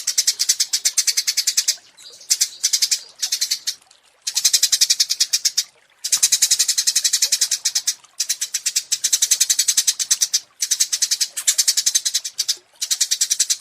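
Small songbird giving rapid, high-pitched chattering trills, about eight notes a second, in repeated phrases of one to two seconds with brief pauses between them: a masteran song-tutor recording.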